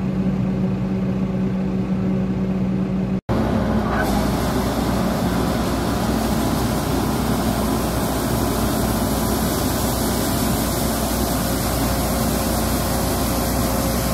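Tractor engine running with a steady hum, heard from its cab; after a cut about three seconds in, a combine harvester running close by, a loud, steady machine noise while it harvests maize for grain.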